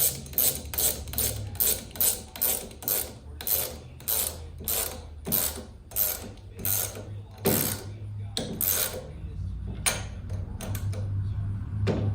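Hand socket ratchet clicking steadily, about three to four clicks a second, as the 3/4-inch handlebar riser bolts on a Harley-Davidson Shovelhead are tightened. The strokes slow and spread out and stop about nine seconds in, with a few single clicks after.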